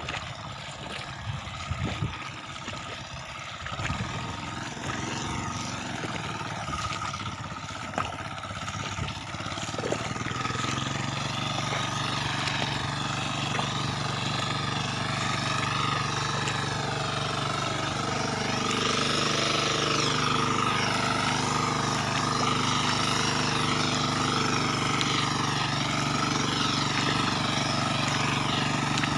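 Hand tractor (kuliglig) engine running steadily in the paddy, coming in about a third of the way through and getting a little louder later. Before it, a few scattered knocks and splashes.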